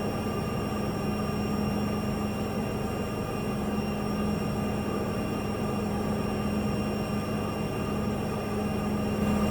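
Steady cabin noise of a jet airliner on the ground just before takeoff: an even engine hum with a strong low drone and thin whine tones above it.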